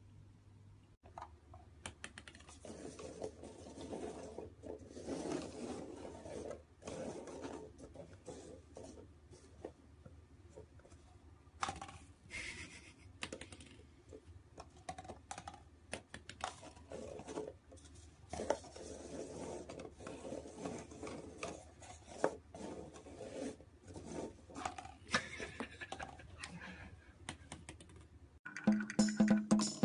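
Irregular light clicks, taps and scrapes of paper cups being slid, set down and lifted on a wooden floor, over a faint low hum. Louder music with a wood-block beat comes in near the end.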